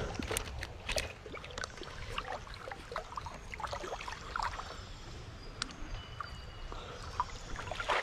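Water splashing and sloshing as a hooked fish is reeled in through shallow creek water and lifted out, with many short clicks and splashes scattered throughout.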